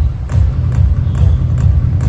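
Music with a heavy bass and a quick percussive beat, about four hits a second.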